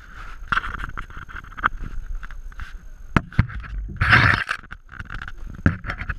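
Irregular knocks, clicks and clatter as a wire-framed crab trap is shaken and handled on a wooden dock and the camera is shifted about, with a loud rubbing rush about four seconds in.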